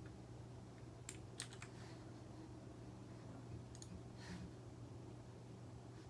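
Faint clicks of computer keys in two short groups, about a second in and again around four seconds, over a steady low electrical hum.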